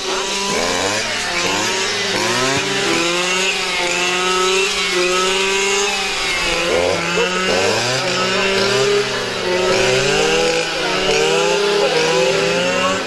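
Petrol brush cutter running while clearing weeds, its engine note steady but wavering up and down in pitch as the load changes.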